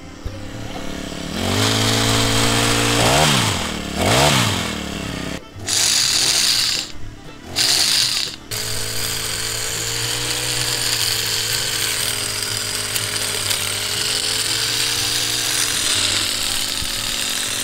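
Petrol hedge trimmer's small two-stroke engine running just after a pull start, its pitch dipping and recovering twice, then running steadily while the blade cuts. The sound breaks off briefly a few times near the middle.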